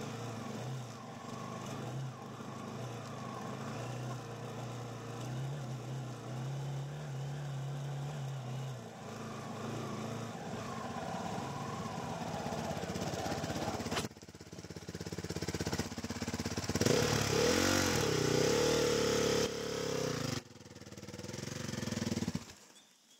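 Quad bike (ATV) engine running under way on a dirt track. It revs up louder with a wavering pitch about two-thirds through, then drops away sharply near the end as the quad comes to a stop.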